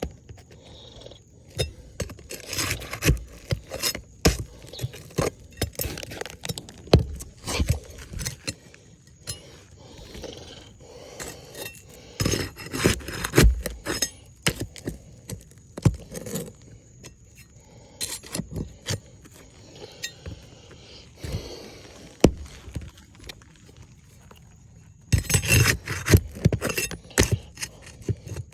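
Clicks, knocks and scraping of small hard objects being handled, with light metallic clinks like keys or tools. The clicks come irregularly, with a dense flurry near the end.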